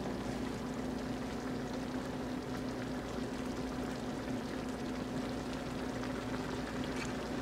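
Skillet of pink salmon and eggs simmering steadily in its liquid, a continuous bubbling sizzle, with a steady low hum underneath.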